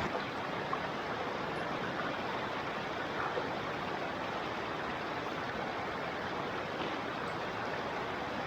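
Steady rush of a mountain waterfall.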